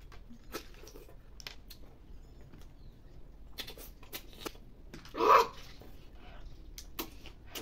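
Snail-eating sounds: short sucking noises and clicks of the shells as cooked snails are sucked out of their shells, several times, the loudest just past five seconds in.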